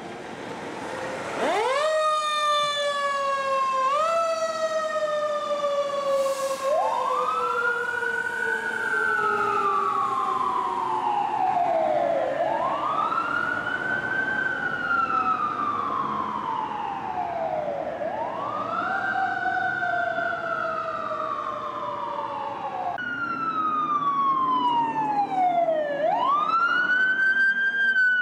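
Los Angeles Fire Department fire engine sirens sounding as it responds: one siren tone jumps up and slowly falls in pitch, pushed up again a couple of seconds later, then a second siren wails, rising and falling about every five to six seconds.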